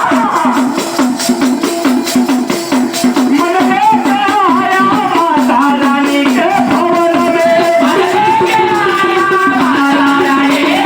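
A Marathi devotional song to Mahadev: a voice sings a winding melody over steady rhythmic percussion with shaken rattles.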